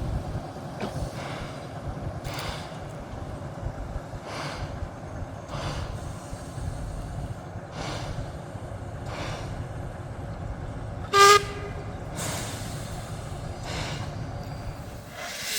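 Steam locomotive working slowly, its exhaust chuffing about once every second and a half over a steady rumble of the train. About eleven seconds in, a short, loud whistle blast.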